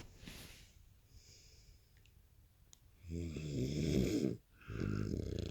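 Snoring: a few seconds of faint breathing, then two loud snores a fraction of a second apart. The first lasts over a second, and the second starts near the end.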